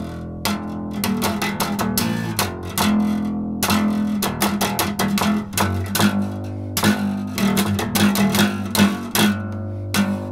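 Acoustic bass guitar playing a plucked riff, quick notes over a strong low line.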